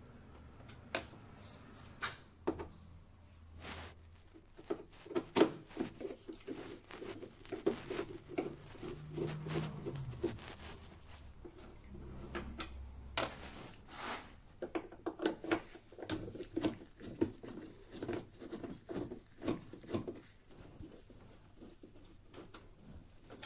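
Plastic engine-bay trim and intake air duct on a BMW being handled and worked loose: scattered clicks and knocks with stretches of plastic scraping and rubbing.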